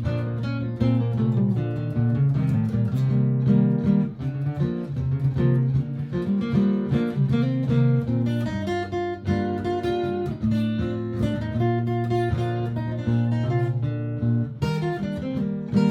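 Martin GPCPA4 steel-string acoustic guitar playing layered looper parts: held low notes repeating under busy picked and strummed improvised lines.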